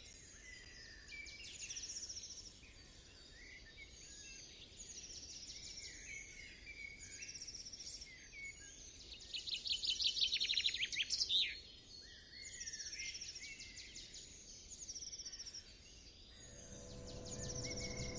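Birds singing, a run of repeated fast trills and chirps, loudest around the middle. Near the end a held flute note fades in underneath.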